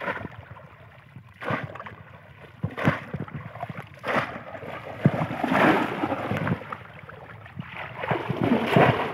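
Muddy water splashing as a bamboo polo fish trap is plunged and pressed down into shallow water: separate splashes about every second and a half, then longer stretches of churning and sloshing.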